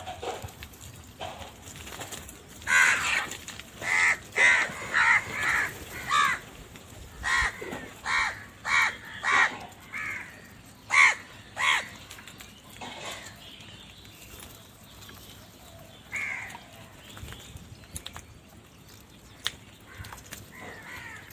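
Crows cawing: a rapid series of loud, harsh caws from several birds for most of the first half, thinning to a few scattered caws later on.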